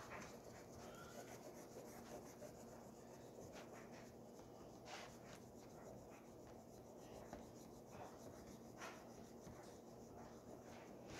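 Faint scratching of oil pastels rubbed across paper, with a few sharper strokes now and then.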